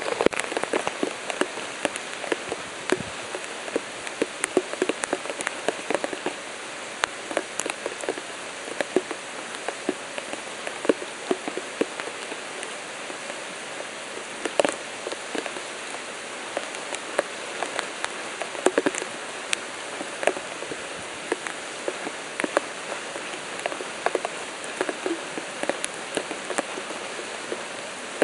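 Rain falling: a steady hiss with many individual drops striking sharply at irregular moments.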